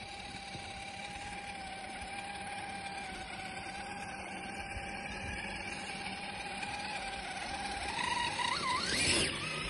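Traxxas TRX-4 RC crawler's electric motor and gear drivetrain whining steadily as it crawls over snow. Near the end the whine rises sharply in pitch as the throttle is opened and the wheels spin in the snow.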